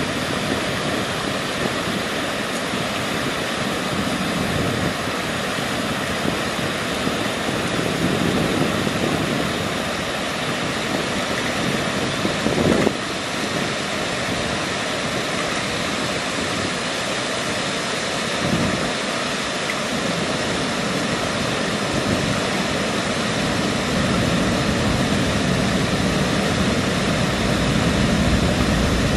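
Water pouring steadily over a small waterfall at a riverbank ledge: an even rushing noise. A short thump about halfway through.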